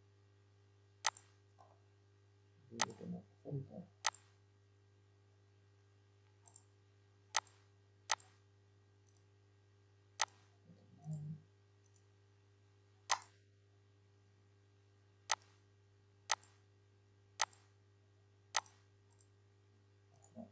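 Computer mouse clicking as menus are worked: about a dozen single sharp clicks, irregularly spaced a second or a few seconds apart, over a faint steady low hum.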